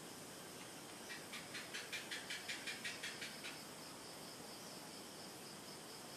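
Crickets chirring steadily in the background, with a quick run of about a dozen sharp clicks, some five a second, swelling and fading in the middle.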